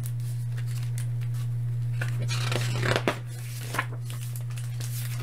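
Pages of a hardcover picture book being turned and handled, paper rustling with a few light clicks, the biggest rustle about halfway through. A steady low hum runs underneath.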